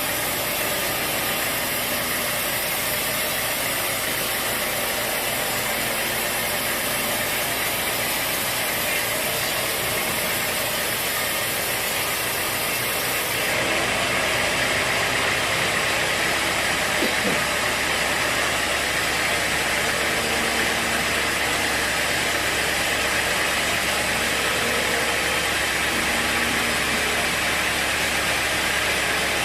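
Sawmill machinery running steadily, a dense mechanical noise that grows slightly louder and hissier about halfway through.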